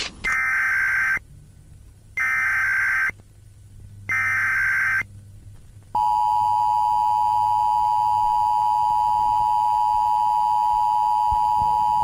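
Emergency Alert System tones: three one-second bursts of the SAME digital header, buzzing data tones about a second apart. About six seconds in, the EAS attention signal starts, a steady two-tone alarm tone that holds to the end.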